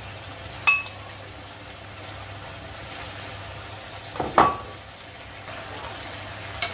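A metal slotted spoon scraping and clinking against a frying pan and a ceramic bowl as fried chicken pieces are lifted out, over a faint sizzle of oil. Two sharp ringing clinks stand out, one about a second in and a louder one about four seconds in.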